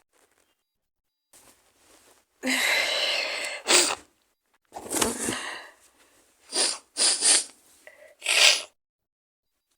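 A woman with a heavy cold sneezing. A long gasping wind-up breath ends in a sharp sneeze about four seconds in, followed by a string of shorter sneezes in quick succession in the second half.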